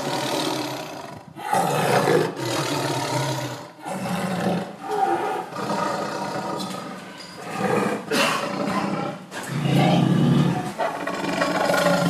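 A big cat, such as a tiger, roaring and growling over and over. Each call lasts a second or two, with short breaks in between.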